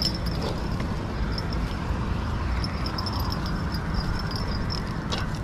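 Outdoor walking sounds by a road: a steady hum of traffic, with light footstep clicks and small high jingles from a dog on a leash.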